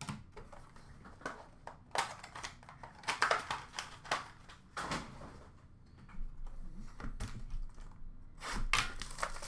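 Irregular light knocks, clicks and rustles of trading cards and their packaging being handled and set down.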